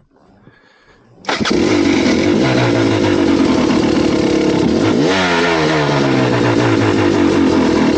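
A motor vehicle engine, loud, cutting in abruptly about a second in and running steadily. About two-thirds of the way through its pitch jumps up and then falls slowly, as revs do when they drop.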